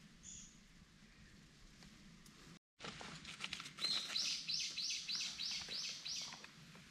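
A songbird sings a run of about seven quick, evenly repeated high notes, starting about four seconds in. A single short high call comes near the start, and a few faint clicks come just before the song.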